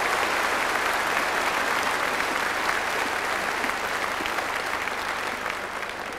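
A large seated audience applauding, the clapping steady at first and then slowly dying away near the end.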